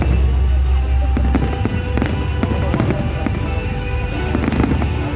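Fireworks display: aerial shells bursting, with many sharp bangs and crackles over a deep low rumble. Music plays along.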